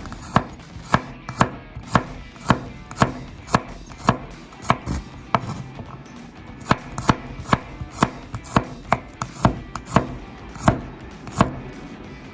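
Knife chopping on a cutting board in steady strokes about two a second, with a short pause midway.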